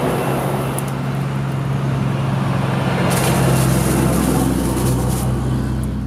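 Steady low engine drone of a heavy truck on the road, with a stretch of higher hiss midway.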